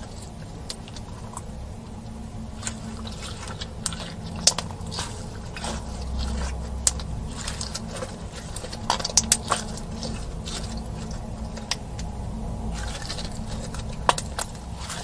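Slime being mixed and kneaded by hand, making irregular sticky clicks and small pops.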